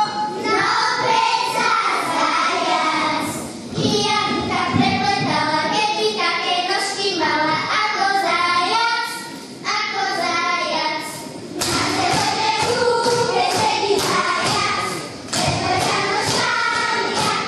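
A group of young girls singing a folk song together, with a few thumps in between.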